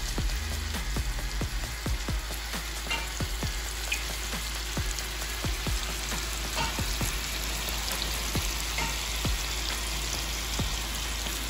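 Pieces of seasoned meat frying in hot oil in a pot: a steady sizzle with frequent, irregular pops and crackles.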